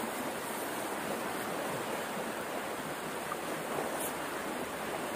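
A small muddy stream rushing steadily over shallow rapids and around submerged branches.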